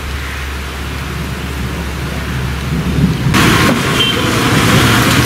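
Steady low rumble with a light hiss, then from about three seconds in, rain falling on a wet street as a louder, even hiss.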